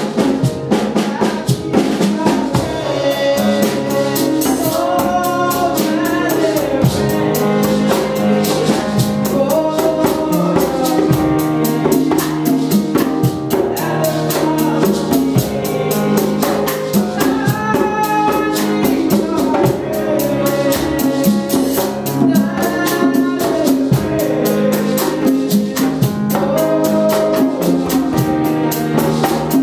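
Praise-and-worship song: a woman sings lead through a microphone while a small group of singers joins in, over a steady drum beat and instrumental accompaniment.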